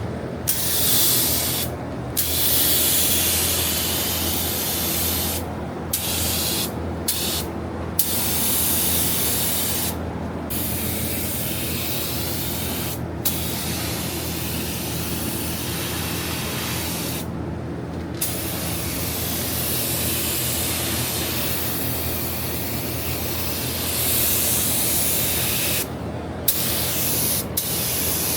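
Compressed air hissing hard from a handheld air gun, in long bursts that cut off for short moments about ten times as the trigger is let go. A steady low hum runs underneath.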